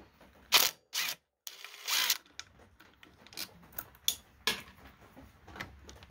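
Cordless impact driver and socket backing out the regulator rectifier's mounting bolts: short bursts of the driver among sharp clicks and clinks of the socket and bolts.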